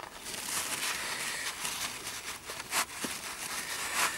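Paper towel rustling and rubbing as it is pressed into an oily compressor housing to soak up oil, with a few sharp clicks.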